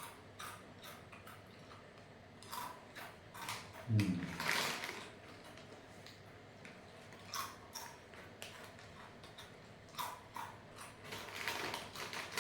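Close-up crunching of crisp coconut bite snacks being chewed: irregular crackly crunches in clusters, the loudest a little after four seconds in.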